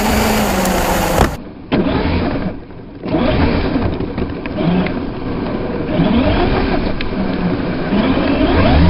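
Traxxas UDR RC truck's brushless electric motor and drivetrain whining, rising and falling in pitch with the throttle, over a rush of tyres churning dirt and gravel, heard from a camera mounted on the bare chassis.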